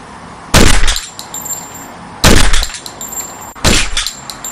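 Three loud gunshot bangs, about a second and a half apart, each sharp with a short ringing tail.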